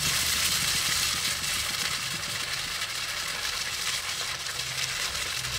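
Threadfin bream frying in hot oil in a pan: a steady sizzle, with a low hum running underneath.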